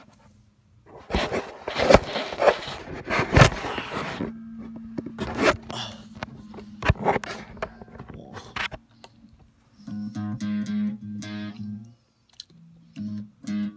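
Clattering and crunching handling noise for the first several seconds. Then, from about ten seconds in, an electric guitar plays a low note repeated quickly in short choppy strokes.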